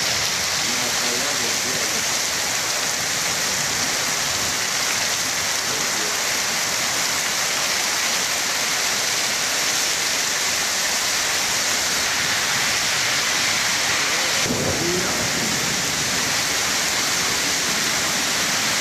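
Heavy downpour from an arriving downburst thunderstorm: a dense, steady hiss of rain on the street, roofs and garden.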